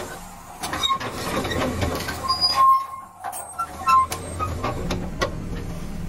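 Heavy machinery running in an equipment yard: a low, uneven engine hum with scattered clicks and knocks and a few short, high squeaks near the middle.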